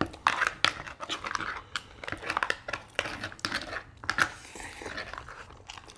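Close-miked mouth-eating sounds, wet chewing and lip smacks, mixed with metal spoons scraping the insides of Dungeness crab shells: a dense run of small clicks and crackles.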